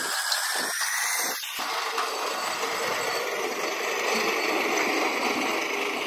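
Piling-rig machinery running steadily: a mechanical drone with some rattle. A high whine over it stops abruptly about a second and a half in.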